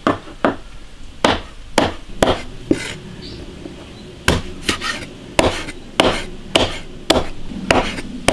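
Chinese cleaver slicing pork cartilage into strips on a plastic cutting board: a run of sharp knocks of the blade on the board, about two a second, with a short pause a little before halfway.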